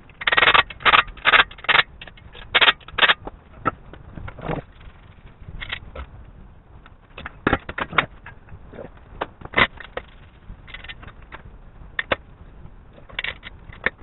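Tools and metal parts being handled in a workshop. A quick run of sharp knocks and clanks in the first three seconds is followed by scattered clicks and knocks.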